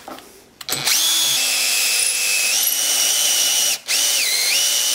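Cordless drill boring a 3/16-inch pilot hole into oak. The motor whines up to speed about a second in, stops briefly near four seconds, then starts again, its pitch dipping for a moment.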